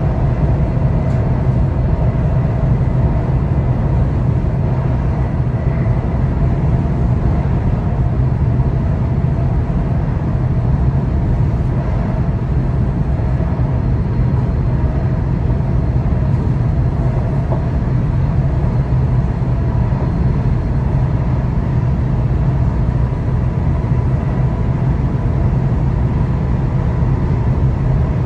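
ICNG electric intercity train running at a steady speed: an even, heavy low rumble with faint steady tones above it.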